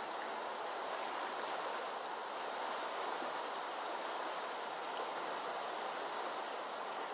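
Steady rush of a flooded creek's running water.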